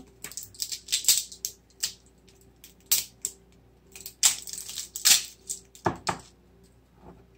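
Small plastic containers and packaging being handled, giving irregular clicks, taps and rattles, a few of them sharper knocks.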